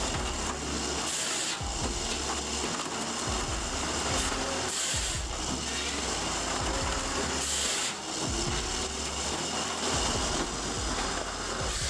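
Firewood processor running, a steady machine noise with brief hissing surges three times, a few seconds apart.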